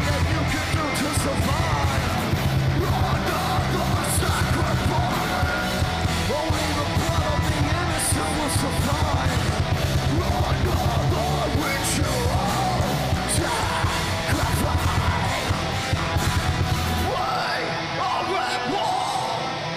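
Live heavy rock band playing loud: distorted guitars, bass and fast drumming under screamed vocals. About three seconds before the end the drums and bass drop out, leaving a thinner sound.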